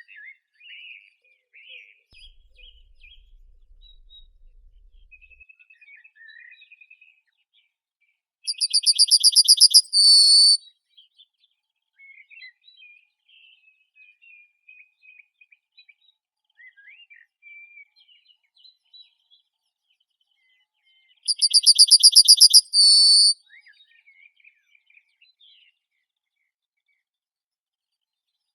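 Birdsong: one bird gives a loud phrase, a rapid high trill ending in a short held note, twice about twelve seconds apart, while fainter birds twitter and chirp in between.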